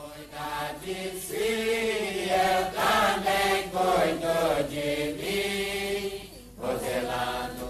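A group of voices singing a hymn together in unison, in long drawn-out notes that step from pitch to pitch: the choral hymn singing of a Santo Daime ceremony.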